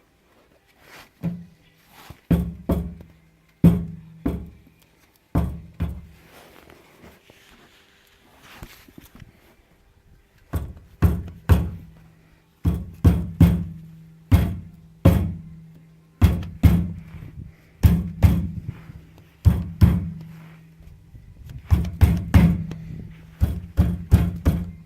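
Repeated hollow clunks rattling inside a BMW E38's fuel tank, each with a short low ring, coming irregularly about one or two a second, with a quieter stretch in the middle.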